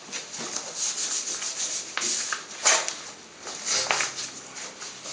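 A hand rubbing a waxing strip down onto waxed skin in a series of uneven rubbing strokes, a couple of them sharper near the middle.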